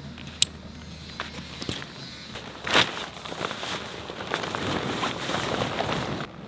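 A strap buckle on a tent's carry bag clicks about half a second in, then a loud swish and a run of heavy fabric rustling as the folded tent is pulled out of its bag.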